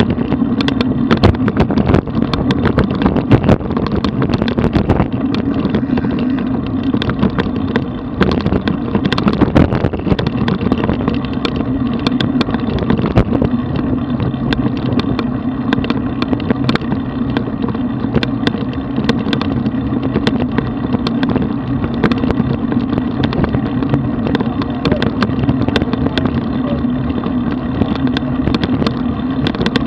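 Road bicycle riding at about 30 km/h, heard through a camera mounted on the bike: a steady rumble of tyres on rough asphalt with frequent small knocks and rattles.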